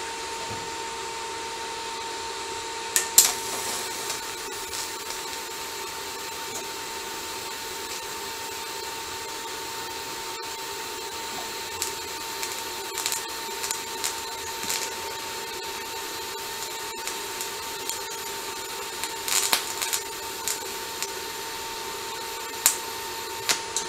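TIG welder tacking thin steel tubing at low amperage: a steady hum and hiss, broken by a few short, sharp crackles as the arc is struck, about three seconds in and again late on.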